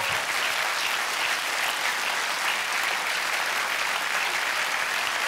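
Studio audience applauding, a steady sound of many hands clapping.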